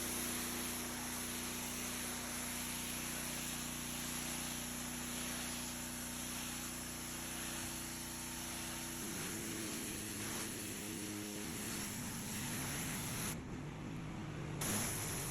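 Simpson gas pressure washer running, its engine humming steadily under the hiss of the wand spraying water onto concrete. About nine seconds in, the steady engine note changes to a rougher sound, and the spray cuts out briefly near the end.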